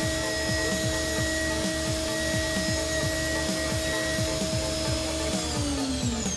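CNC milling machine cutting Inconel 718 at high speed with a solid ceramic end mill: a steady machining sound with a held whine from the spindle. Near the end the whine slides down in pitch as the spindle winds down. Electronic background music with a steady kick-drum beat plays underneath.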